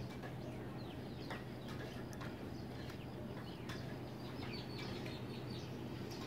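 Birds chirping: many short, quick-falling high chirps scattered throughout, over a steady low hum, with a few light clicks.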